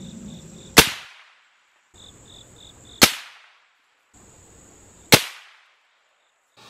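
Three rifle shots from a Ruger American Go Wild in .30-06, each a sharp crack with a short echoing tail, about two seconds apart. Insects chirp steadily in the background between the shots.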